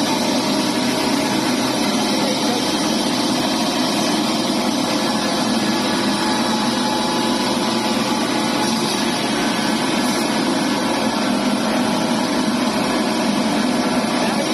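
Industrial herb and spice grinder machine running steadily, its motor and grinding chamber giving an even, continuous mechanical noise.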